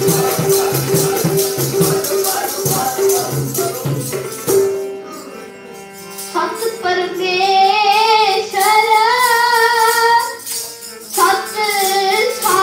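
Sikh kirtan: harmonium and tabla with rattling hand shakers and clappers keeping a fast rhythm, which drops away about four and a half seconds in to a held harmonium note. From about six and a half seconds a child's voice sings a long, winding melodic line over the harmonium.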